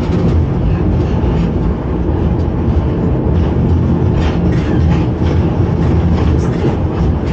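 Electric railcar set of the 1981 reconstructed type (Reko-ET) running on the line, heard from its driving cab. There is a steady low rumble with an even hum, and a few short clicks of the wheels over the track about halfway through.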